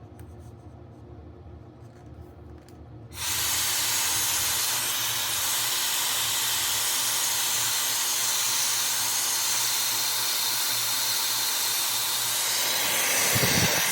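High-speed hot air styler (hair dryer brush) switched on about three seconds in, then blowing a loud, steady rush of air.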